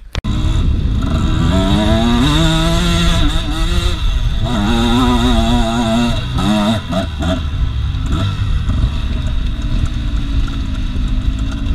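Off-road enduro motorcycle engine being ridden hard: it cuts in sharply at the start, revs up in two rising sweeps, then runs more steadily at lower revs over the last few seconds.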